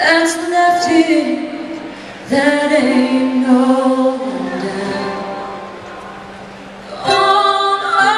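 Several voices singing a slow harmony, largely unaccompanied, in long held phrases; new phrases start about two seconds in and again near the end, over a steady low held note.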